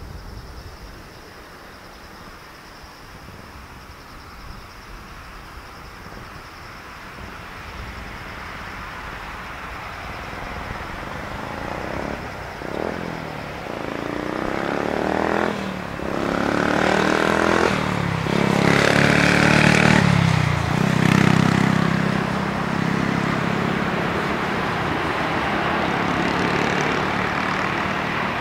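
Boeing 747-400 freighter landing: its jet engines grow louder on approach, with a falling pitch as it passes about halfway through, then touch down and swell to their loudest in reverse thrust during the rollout. The engine noise then settles to a steady rumble with a low hum as the jet slows.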